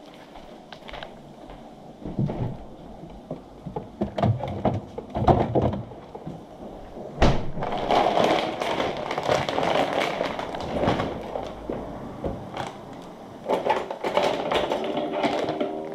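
Clear plastic food bag crinkling and rustling as it is handled, amid irregular clicks and knocks, with one sharp knock about seven seconds in.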